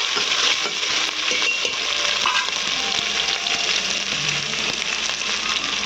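Crushed ginger and garlic, fennel seeds and curry leaves sizzling steadily in hot oil in a pan, with the clicks and scrapes of a spatula stirring them as they sauté.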